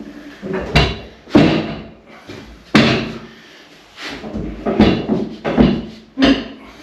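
A freestanding bathtub being shifted and pressed into its corner, its shell knocking and thudding against the floor and walls: several sharp, irregularly spaced knocks.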